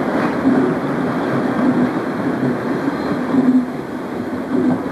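Passenger train coaches rolling past on the tracks: a steady rumble of wheels on rail that rises and falls in loudness.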